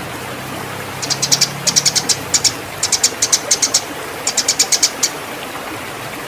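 Eurasian tree sparrow giving fighting calls: rapid runs of sharp, high chirps in several bursts from about one to five seconds in, over a steady hiss.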